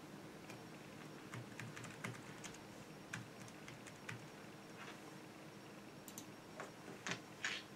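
Typing on a computer keyboard: irregular key clicks, a few louder ones near the end.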